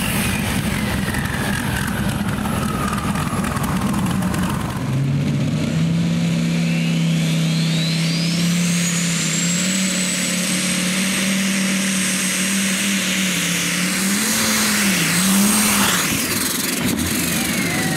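Light modified pulling tractors at full revs. First, one engine's high whine falls away. Then another tractor's engine runs hard with a high whine that climbs and then holds; the engine note wavers briefly near the end before the whine falls again.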